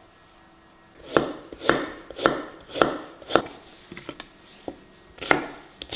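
Chef's knife slicing ginger on a wooden cutting board: about five even strokes, roughly two a second, then a few lighter taps and two more strokes near the end.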